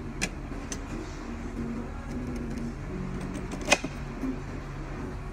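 Fast-food restaurant room noise, a steady low hubbub, with a few short, sharp clicks of cutlery on tableware. The loudest click comes a little under four seconds in.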